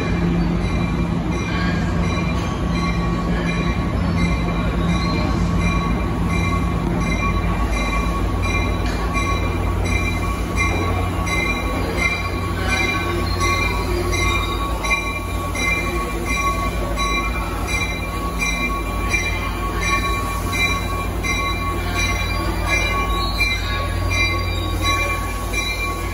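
NJ Transit commuter train creeping into the platform cab car first, its wheels squealing in steady high-pitched tones. Underneath is a continuous low engine hum.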